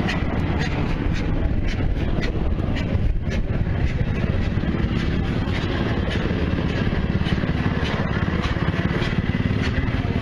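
A large old Sulzer stationary diesel engine running steadily, its firing making an even, continuous rhythmic beat with a clatter of sharp ticks on top.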